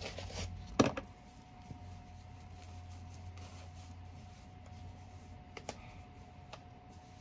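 Handling noise of a thin wig cap and its paper wrapper: a short rustle, a sharp tap about a second in, then faint rubbing and a few small ticks as the stretchy cap is pulled on over braided hair. A faint steady hum runs underneath.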